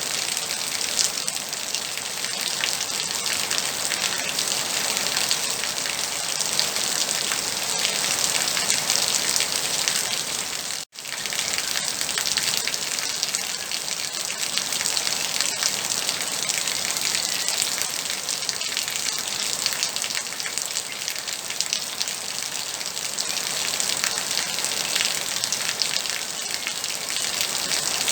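Steady moderate rain, a dense hiss of falling drops with many small, fine drop hits. It cuts out for a split second about eleven seconds in.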